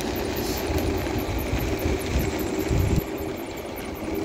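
iSinwheel S9 Max electric scooter riding along, with a steady hum from its hub motor, which the owner calls blown, and a low rumble from motion on the path that eases about three seconds in.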